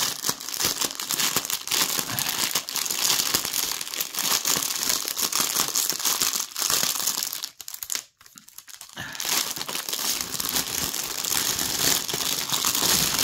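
Clear plastic wrap crinkling and rustling as a heavy bundle of bagged diamond-painting drills is handled, with a short pause a little past halfway.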